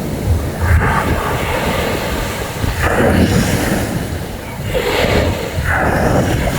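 Sea surf washing in with strong wind buffeting the microphone, swelling and easing several times.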